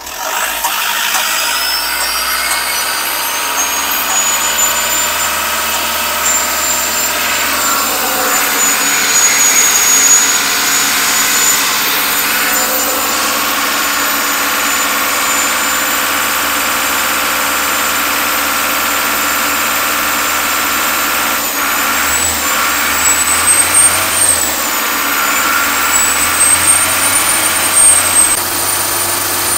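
Isuzu NHR55's turbo diesel engine held at raised revs, with a high turbocharger whistle that climbs over the first couple of seconds, then holds steady and wavers up and down near the end. The engine is being run at about 1800 to 2500 rpm to test whether the freshly rebuilt turbo still leaks oil through to the exhaust.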